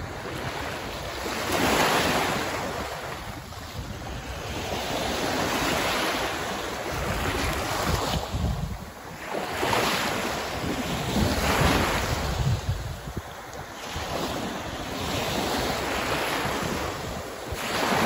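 Small waves washing up onto the shore in repeated swells every few seconds, with wind buffeting the microphone.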